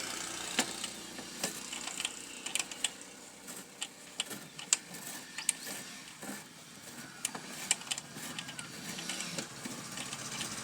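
Irregular small metal clicks and scrapes as the retaining nut is unscrewed from an amplifier's panel socket and the socket's parts are pulled out.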